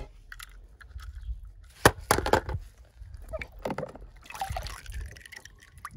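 A hand sloshing and splashing in water in a plastic tub, with a few sharp clicks and knocks, the loudest about two seconds in.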